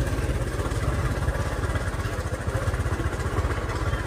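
Small motorcycle engine running steadily, with a fast, even low putter.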